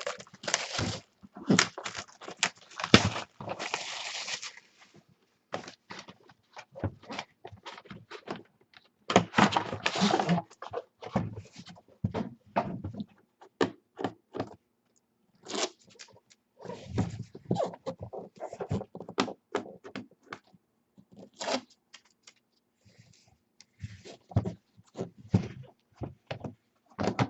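Trading-card packaging being opened and handled by hand: a busy run of clicks, knocks and scrapes, with stretches of rustling about two to four seconds in and again around ten seconds.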